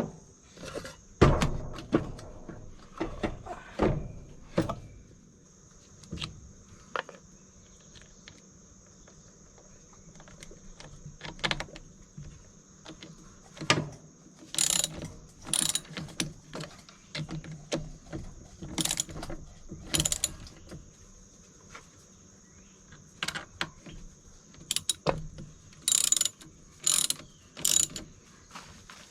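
Ratchet wrench clicking in short bursts, with knocks and clanks of tools on metal, as a new battery is fitted and its terminals tightened.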